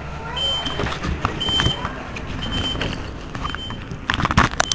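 A short high electronic warning beep repeating about once a second over a low traffic rumble, with a burst of loud knocks near the end.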